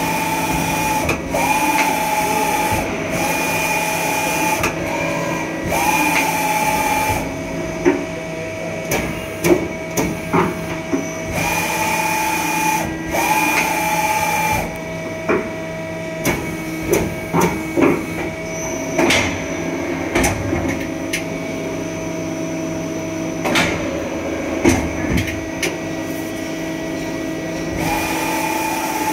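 Johnford TC-35 CNC lathe running through its program, with a steady hum throughout. Repeated bursts of about a second each carry a high whining tone and hiss, in a run at the start, again a little past the middle and near the end. Between them comes a stretch of irregular sharp clicks and knocks.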